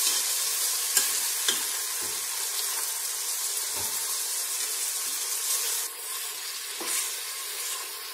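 Sliced onions sizzling in hot oil in an aluminium pressure cooker as they are stirred and fried, the spoon scraping and knocking against the pot now and then. The sizzle softens a little about six seconds in.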